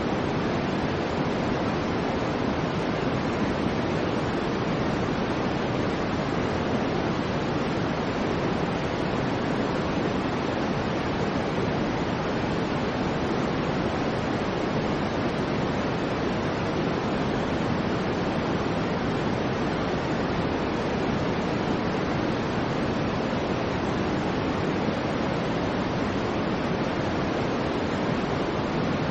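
Steady soft white noise for infant sleep: an even, unbroken hiss that is heaviest in the low and middle pitches and muffled at the top, with no changes.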